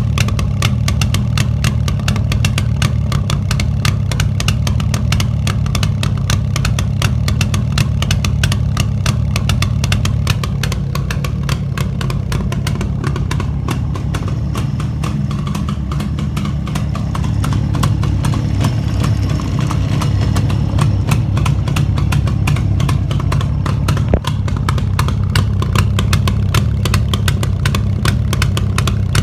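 Jawa 634/638 motorcycle's 350 cc two-stroke twin engine, just after a full rebuild, running steadily.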